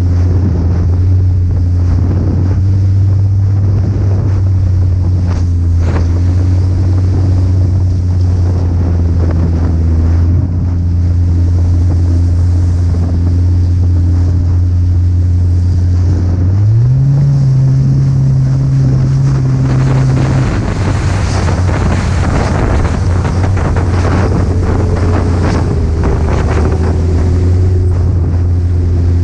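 Snowmobile engine running steadily, with wind buffeting the microphone. About 17 seconds in the engine revs up to a higher pitch, holds there for a few seconds, then drops back.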